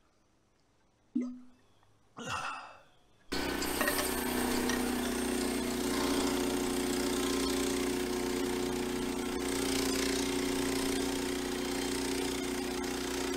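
Small gasoline engine of a portable sawmill running steadily. It cuts in abruptly about three seconds in, after a sharp click and a short rising sound.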